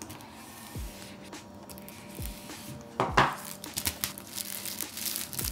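A knife slitting the plastic shrink-wrap on a laptop box, then the film being pulled off, with a loud rustling swish about three seconds in and a few soft knocks of the box against the table.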